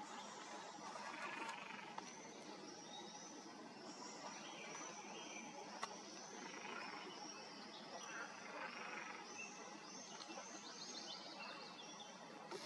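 Faint evening marsh ambience: a steady run of short, high chirps, a few a second, over a soft background hiss, with gentle rushing swells every second or two.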